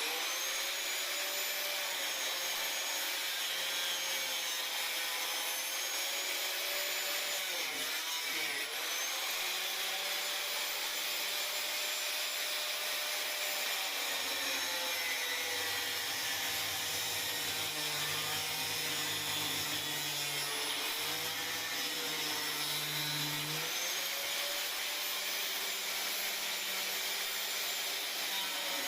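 Electric power saw running continuously while cutting, likely through the ceiling around the loft hatch, its motor pitch wavering under load and dipping briefly about eight seconds in.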